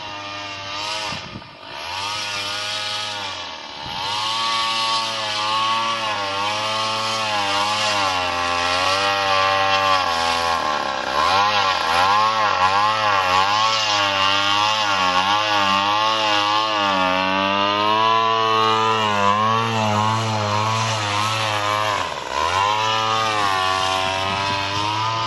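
Small model-airplane engine running with a high buzz, its pitch rising and falling again and again as the RC plane throttles and moves about over the snow.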